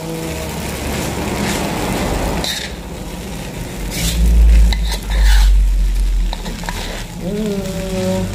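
Metal spatula scraping and tossing fried rice in a wok, with a steady frying sizzle and repeated scrapes against the pan. A deep rumble swells about four seconds in and is the loudest sound for about two seconds.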